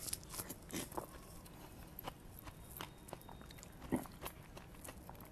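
Faint sounds of a man eating a spoonful of fruit custard: soft chewing, lip smacks and small clicks, with one louder mouth sound about four seconds in.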